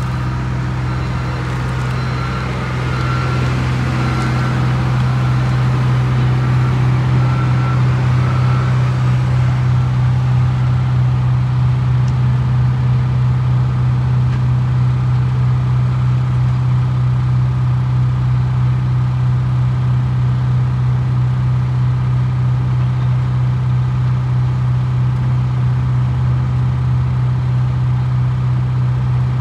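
Heavy junkyard machinery's engine running steadily with a low drone, growing a little louder a few seconds in.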